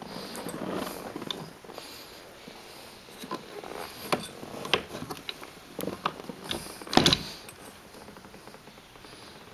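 Hand working the outboard's side-mounted remote throttle and shift control lever: a rustle, then a string of sharp clicks and knocks, the loudest a thump about seven seconds in.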